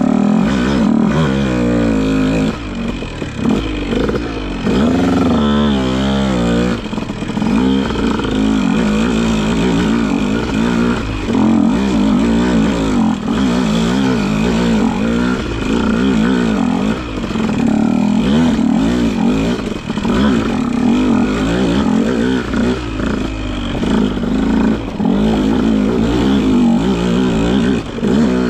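Husqvarna TC 150 two-stroke dirt bike engine running close up, revving up and down constantly as the throttle is worked over rocks, its pitch rising and falling every second or so.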